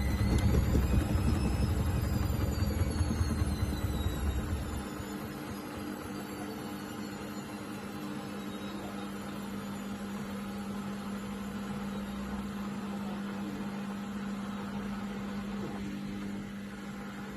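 Hoover 7 kg washing machine attempting a spin burst with an unbalanced load. The drum rumbles loudly and the motor whine climbs, then falls away as the drum slows after about four seconds, leaving a steady hum.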